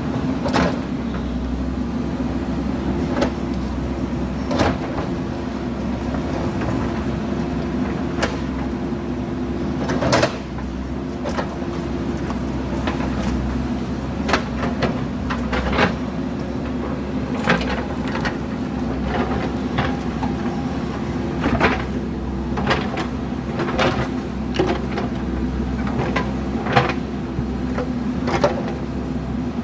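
JCB backhoe loader's diesel engine running steadily under load, with frequent sharp knocks and clanks from the working machine at irregular intervals.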